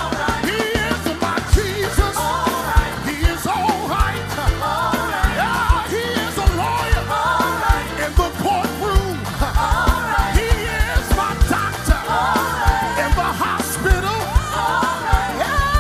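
Live uptempo gospel music: several singers singing over a band with drums keeping a steady beat and electric guitars.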